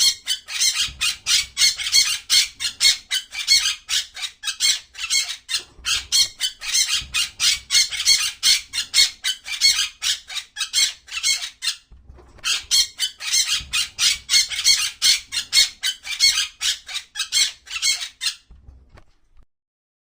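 A parrot squawking in a rapid string of harsh, screechy calls, about four a second, with short breaks around six and twelve seconds in. The calls stop a couple of seconds before the end.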